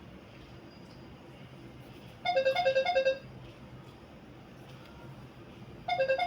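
Two short bursts of electronic beeping, about four seconds apart, each a quick run of pulsed tones stepping between a higher and a lower pitch, like a ringtone or alert.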